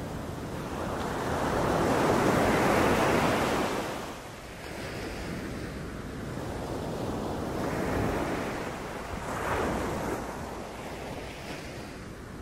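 Sea waves breaking on a beach, the surf swelling and ebbing. One large wave builds and breaks about two seconds in, followed by smaller washes later.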